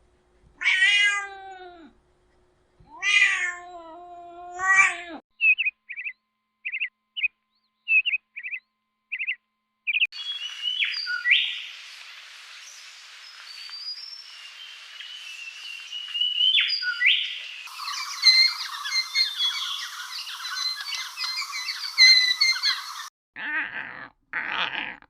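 A domestic cat meows three times. It is followed by a string of short high chirps, then birds chirping and calling over a light hiss, building to a dense chorus of bird twitter. Other short animal calls come in near the end.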